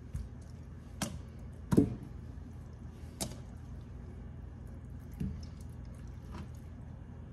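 Raw chicken pieces set one by one into a cast-iron skillet: about six soft slaps and knocks of meat on the iron, the loudest a little under two seconds in, over a steady low hum.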